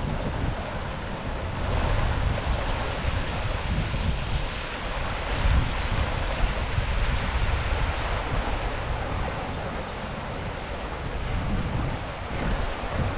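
Wind buffeting the microphone in uneven gusts, over a steady rushing hiss.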